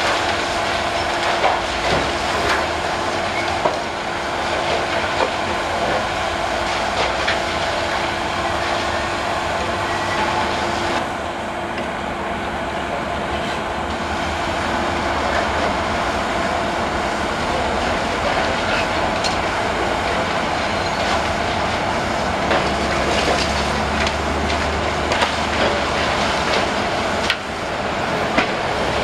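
High-reach demolition excavator with a crusher jaw chewing through a concrete building: continuous crunching and clattering of breaking concrete and falling debris, with many sharp knocks over a steady machine hum.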